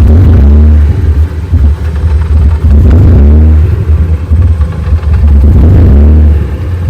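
BMW E36 drift car's engine running hard over a heavy, steady low rumble, its revs rising and falling several times.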